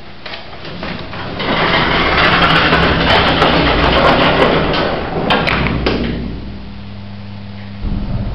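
1980s hospital lift in operation: the car doors slide with a loud rumbling clatter. A steady low hum of the lift machinery follows, with a thump near the end.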